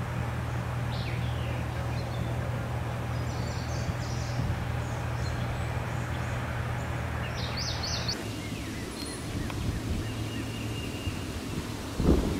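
Outdoor ambience at a flooded road: a steady low engine hum under a broad rushing noise, with birds chirping now and then. About two-thirds of the way through the sound changes abruptly to a quieter ambience with birds and a thin, high, steady tone.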